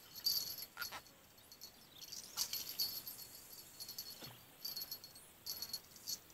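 Insects chirping in high-pitched spells that come and go, with a few brief falling chirps.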